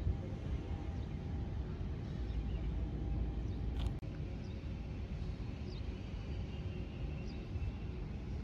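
Outdoor ambience: a steady low rumble with a faint hum, and a few faint bird chirps in the second half. A brief dropout about four seconds in.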